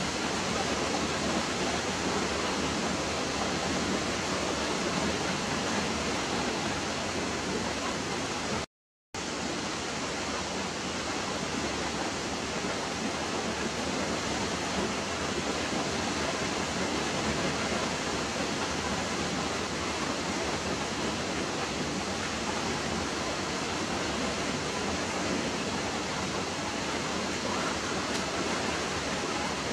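Steady, even hiss with no pitch or rhythm, cut by a sudden moment of complete silence about nine seconds in.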